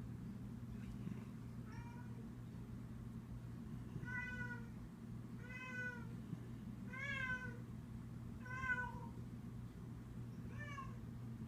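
Domestic cat meowing repeatedly, about seven short meows one to two seconds apart, each rising and then falling in pitch, over a steady low hum.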